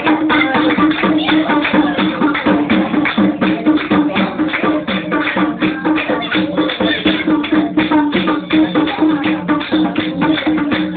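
Nepali dohori folk music: fast, dense drum strokes over a steady low held tone.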